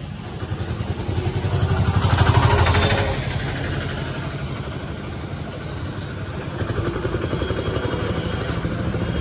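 Street traffic: a small motor vehicle passes close by, loudest about two seconds in, then engine noise and general street bustle go on steadily.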